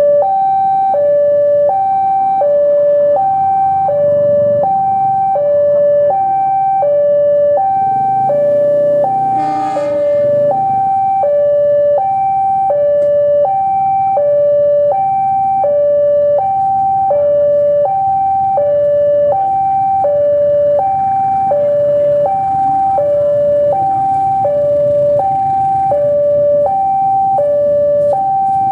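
Two-tone electronic warning alarm sounding loud and steady, alternating low and high pitch about once a second, over the low running rumble of a CC 203 diesel locomotive. About nine and a half seconds in there is a brief harsher sound.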